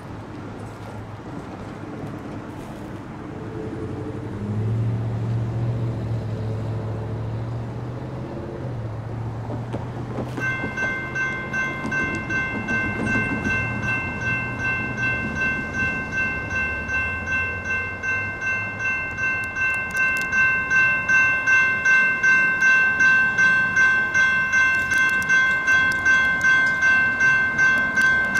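A low rumble, then about ten seconds in a railroad crossing's GS Type 2 electronic bells start ringing at about two strikes a second, louder in the last part: the crossing has activated for an approaching train.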